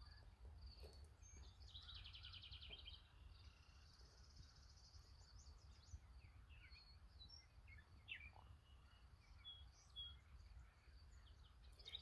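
Faint mixed chorus of wild songbirds: a couple of rapid trilled songs in the first few seconds and scattered short chirps and calls after, over a low steady rumble.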